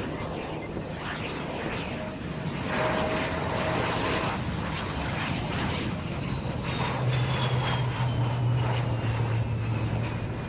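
HAL Tejas light combat aircraft's turbofan jet engine running as the jet lands. Its thin high whine falls steadily in pitch through the second half, over a steady roar. A strong low hum joins about seven seconds in.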